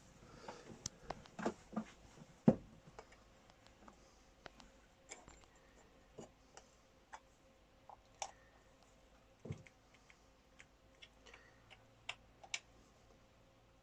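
Irregular sharp clicks and knocks of hand tools and metal engine parts being handled while refitting the rocker cover of a Volvo D17C engine, the loudest knock about two and a half seconds in.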